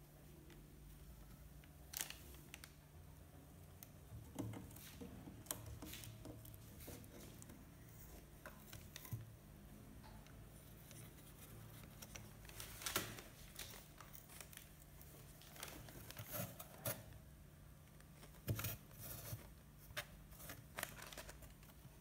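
Faint, scattered scratching and tapping as a cat moves about in a wooden crate, claws and body catching on the wood, over a low steady hum.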